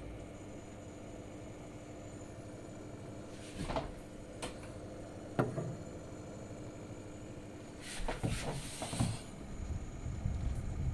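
Crucial P3 Plus M.2 NVMe SSD making its weird screeching noise as it works: a few short bursts around the middle and a longer, rougher one near the end, over a steady computer hum with a faint high whine. The uploader puts the noise down to the CPU's C-states power saving.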